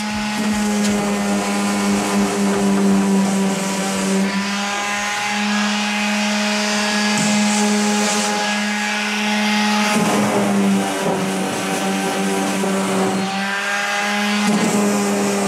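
Electric orbital sander running against the wooden inside of a canoe hull: a loud, steady motor hum that shifts in tone a few times.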